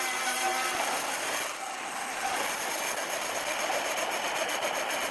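Vintage Rockwell-Delta bandsaw ripping lengthwise through a metal pipe: a steady grinding hiss from the blade with a faint whine.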